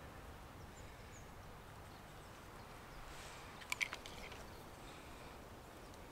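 Quiet woodland ambience with a few faint bird chirps. A quick run of three or four small clicks comes a little before four seconds in, while a knife is being handled.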